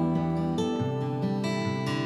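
Background music led by acoustic guitar, with chords changing every half second or so.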